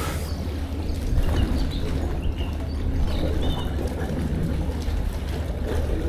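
Outdoor harbourside ambience: a steady low rumble with a few faint, short high chirps in the middle.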